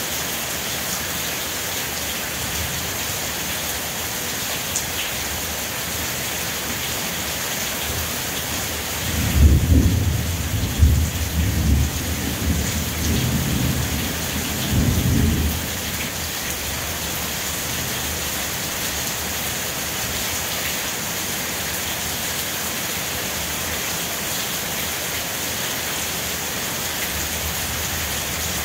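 Steady rain falling, with a low roll of thunder rumbling in several swells for about seven seconds, starting about a third of the way in.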